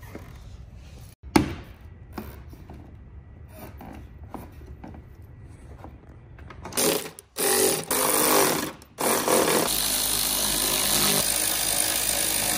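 Cordless electric ratchet running in three spells, the last about four seconds long, driving in the bolts of a rear rock guard. Before it come a few seconds of quieter clicks as the guard is handled into place.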